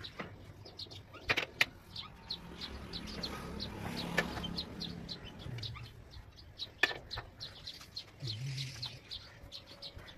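Small birds chirping over and over, a few short calls a second, with a few sharp metallic clicks from a hand wrench being worked on a tractor's rear wheel nuts.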